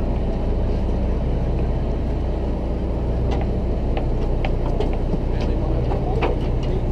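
Boat engine running with a steady low drone, with scattered short clicks and knocks on deck.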